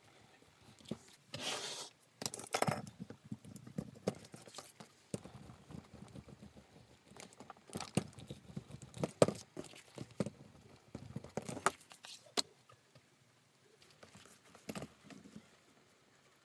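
Leather pieces handled and pressed down by hand: rustling, soft scrapes and clicks. Through the middle a steel hand roller is run along the glued leather strap on a cutting mat, a low rolling rumble broken by sharp clicks.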